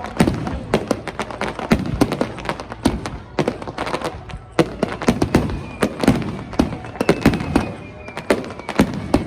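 Fireworks display: shells bursting in quick, irregular succession, several sharp bangs a second, with crackle between them.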